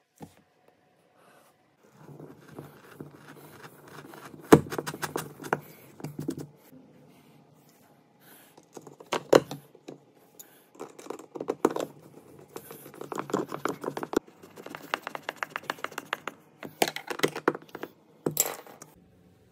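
A hand screwdriver drives screws through a black plastic billiard-cue wall rack: runs of quick clicking and scraping as the screws turn, with a few sharp knocks of the rack and tools being handled.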